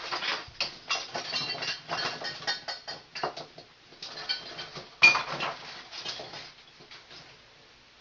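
Dense clicking and rattling of small hard parts being handled during switch wiring, with one sharp knock about five seconds in, then only faint occasional handling.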